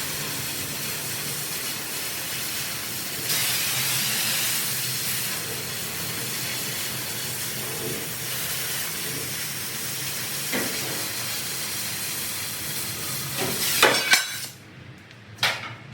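Oxy-acetylene cutting torch running with a steady hiss. The hiss grows louder for a couple of seconds about three seconds in, then cuts off near the end amid a few sharp metal knocks.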